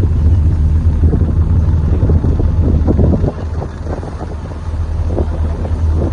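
Car interior noise while driving: a loud low rumble of road and engine with wind buffeting the microphone. It eases somewhat about three seconds in.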